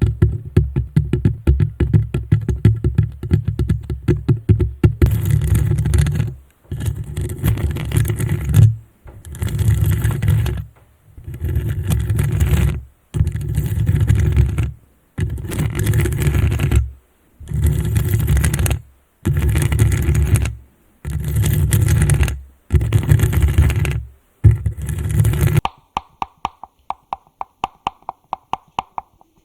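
ASMR ear-massage sounds made close on a microphone. Fast tapping comes first, then about ten long scratchy rubbing strokes with short pauses between them, then quick regular ticking near the end.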